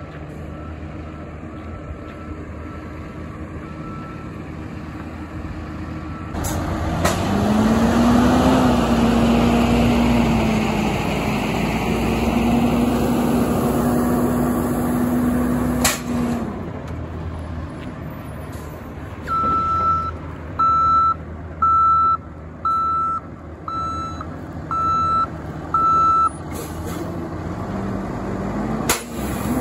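Asphalt distributor truck at work: its diesel engine and pump run under the hiss of the rear spray bar spraying liquid asphalt, with a whine that rises and then holds steady. Later a reversing alarm beeps seven times, about once a second, and fainter reversing beeps sound at the start.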